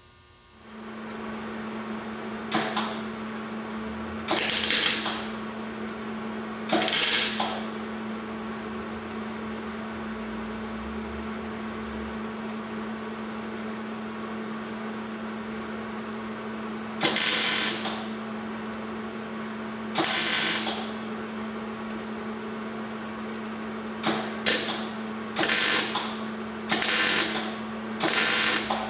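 Welding arc crackling in about ten short bursts, each under a second, as a sheet-steel patch is tacked and stitched into a truck's rusted cab support. A steady low hum runs underneath.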